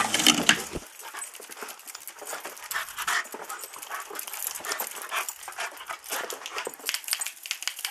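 A dog panting quickly and unevenly, excited at the prospect of a walk. It opens with a loud rustling knock in the first second.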